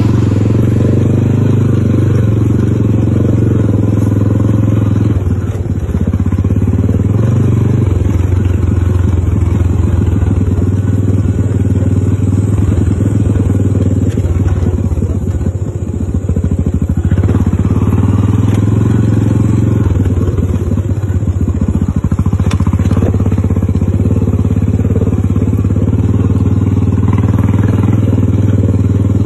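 An engine running steadily with an even low hum, easing off briefly a few times.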